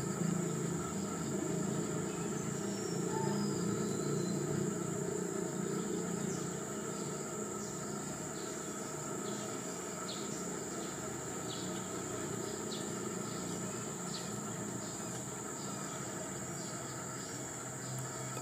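Insects droning steadily at a high pitch in the forest canopy, over a low steady background hiss, with short high ticks scattered through the second half.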